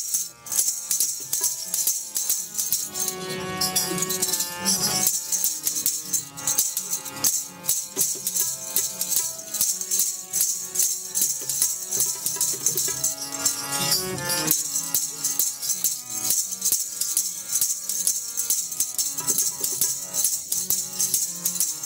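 Music with a steady jingling, rattling percussion running over changing melody notes.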